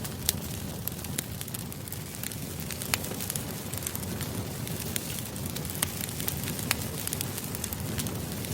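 Campfire crackling: irregular sharp pops and snaps over a steady low rumble of burning wood.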